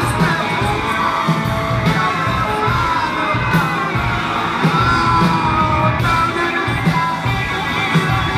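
Rock band playing live in a large hall, heard from the crowd: electric and acoustic guitars, drums and singing, with shouted voices mixed in.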